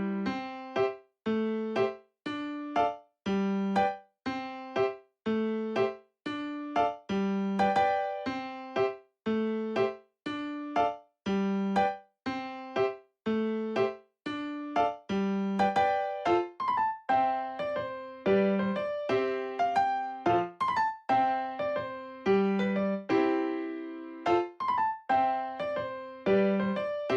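Background music: a bouncy piano or electric-piano tune of short, detached chords in a steady beat.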